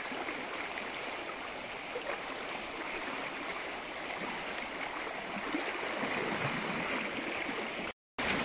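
Steady rush of river water flowing, cutting out for an instant near the end.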